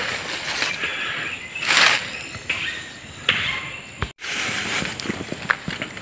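Footsteps through forest undergrowth, with leaves and brush swishing against the body in uneven bursts. After a brief dropout about four seconds in, the steps turn into many small cracks and clicks of twigs and dry branches underfoot.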